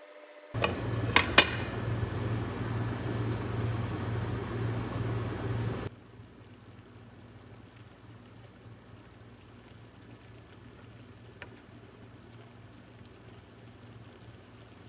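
Tomato-and-tuna stew simmering in a frying pan, bubbling loudly, with a few sharp clinks near the start as the glass lid comes off. About six seconds in the bubbling drops suddenly to a faint simmer.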